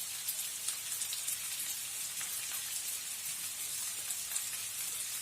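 Chopped cabbage, onion and garlic sautéing in oil in a frying pan: a steady sizzle with small crackles.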